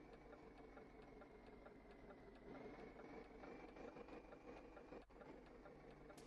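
Faint, steady vehicle engine hum with a thin high whine and light, regular ticking.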